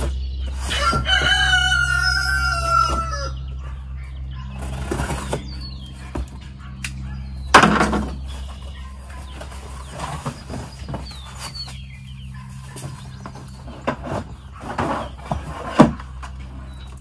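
A rooster crows once about a second in, one long call of several stepped notes. Then a cardboard box rustles and knocks as it is opened and emptied, with two sharp knocks, one about midway and one near the end, over a steady low hum.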